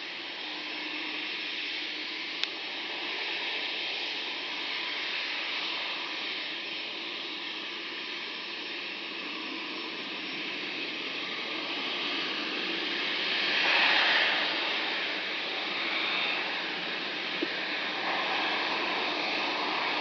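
Rolls-Royce Trent XWB turbofans of an Airbus A350 running as the airliner taxis past, a steady jet whine and rush that swells to its loudest about two-thirds of the way through. A sharp click is heard a couple of seconds in, and again near the end.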